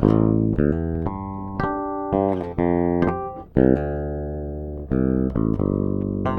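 Ibanez SR-3006E six-string electric bass through its Bartolini NTBT-918 preamp, recorded direct with no effects, playing a run of plucked notes with clean sharp attacks, several left to ring.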